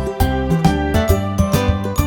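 Upbeat children's background music with a steady beat and bright, tinkling melody notes.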